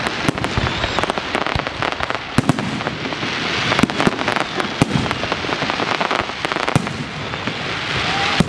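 Aerial fireworks shells bursting in a dense barrage: many sharp bangs in quick succession over a continuous noisy din.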